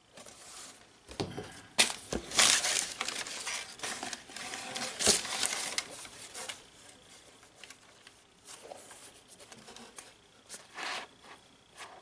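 Tissue paper crinkling and rustling as sneakers are lifted and handled in their cardboard shoebox, with a few sharp knocks in the first half; it is loudest in the first half and quieter rustling after.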